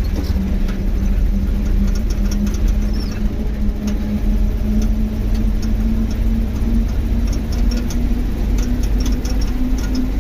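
A moving vehicle's engine running steadily, its pitch slowly rising, over a heavy low rumble of wind and tyres on a rough unpaved road surface, with scattered small ticks and rattles.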